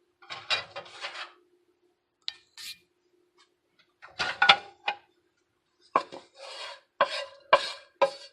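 A utensil scraping and clinking against a dish in several short bursts, as cooked chicken pieces are moved into the salad.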